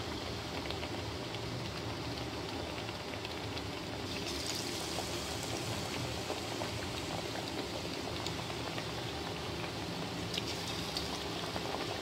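Hot oil sizzling and bubbling steadily around gram-flour-battered potato tikkis as they deep-fry, with many small crackles. The sizzle grows a little brighter about four seconds in.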